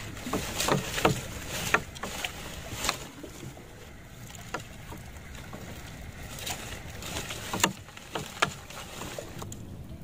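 Nylon fishing net being paid out by hand over the side of a small boat: a string of sharp splashes and knocks as the net drops into the water, several in the first three seconds and a few more near the end, over a steady background hiss.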